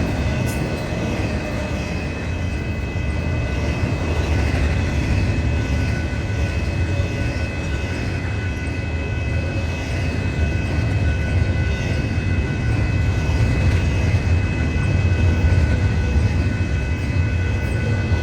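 Freight train rolling past, a steady low rumble with a steady high-pitched whine held over it.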